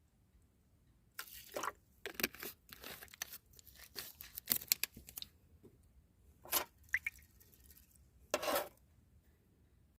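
Irregular short crunching and crinkling handling noises, a dozen or so brief bursts with sharp clicks among them and a longer burst near the end.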